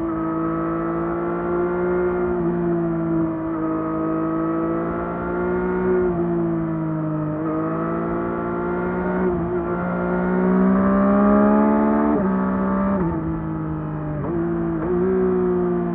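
The 2024 Yamaha MT-09 SP's inline three-cylinder engine through its stock exhaust, running under way. Its pitch climbs and falls with the throttle, with several sudden drops.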